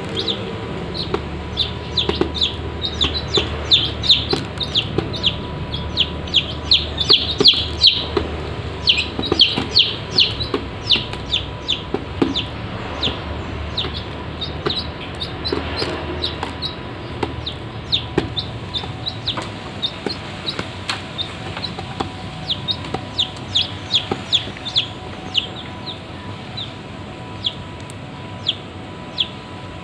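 Domestic chicks peeping: a rapid run of short, high, falling chirps, busiest in the first half and sparser toward the end, with light clicks of beaks pecking grain in a metal bowl.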